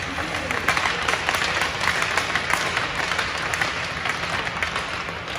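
Applause: many hands clapping steadily, filling the ice rink.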